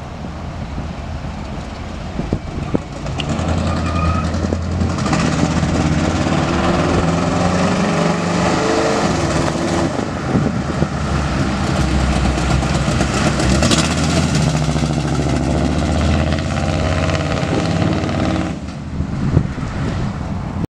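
The pickup's 383 stroker V8 running with a loud, rough exhaust, getting louder about five seconds in and rising in pitch as it is revved and pulls away, then dropping off near the end.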